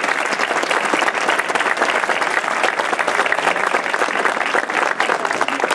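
Audience applauding: many people clapping at a steady level, with no speech over it.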